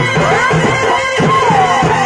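Live Purulia Chhau dance music: a shehnai plays a wavering, gliding melody over a quick, steady beat of dhol and dhamsa drums.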